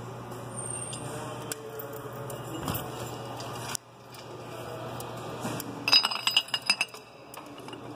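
Steel bearing puller clinking and rattling as it is slid over the splined input shaft of an Eaton Fuller 10-speed transmission: a quick run of sharp metallic clinks about six seconds in. A low steady hum fills the first half and stops abruptly.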